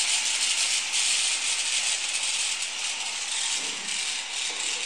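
Infinity Nado 5 spinning top spinning steadily in place on its pointed stamina-type tip in a plastic stadium. Its tip on the plastic floor makes an even, rattling hiss that slowly gets quieter.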